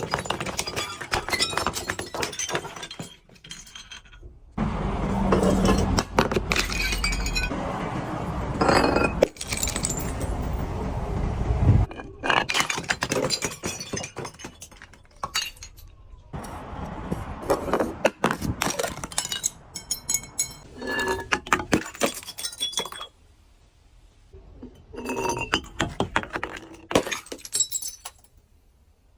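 Glass breaking and crunching, with shards clinking, in a series of separate crushes with short pauses between; a heavier, longer crunch runs from about five to twelve seconds in.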